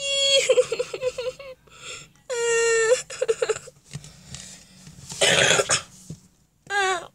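A high voice acting out crying: long, high wailing cries broken by sobs, with a rougher sobbing burst a little past halfway and a short cry falling in pitch near the end.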